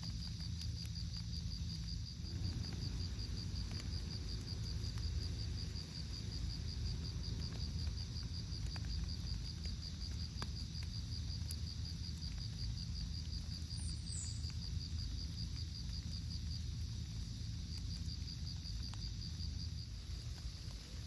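An insect, likely a cricket or katydid, chirping in a steady pulsing rhythm of several high pulses a second, over a steady low rumble of outdoor background noise. A brief higher chirp comes partway through.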